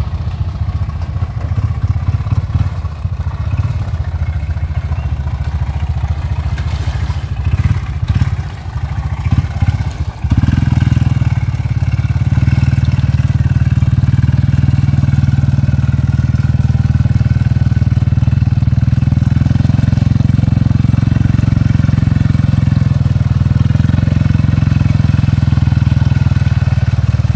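ATV engine running hard in deep mud. It revs unevenly with brief drops for about ten seconds, then is held loud and steady at high revs to the end.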